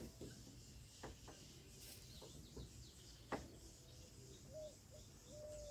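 Near silence in open country, with a few faint clicks and, in the last second or so, faint short calls, most likely distant birds.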